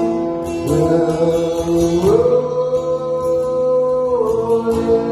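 Worship music: a voice holding long sung notes, sliding up to a higher note about two seconds in and stepping down near the end, over guitar accompaniment.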